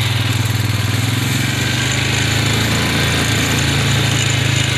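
ATV engine running steadily at a constant speed, a low even drone with fast regular firing pulses and no revving.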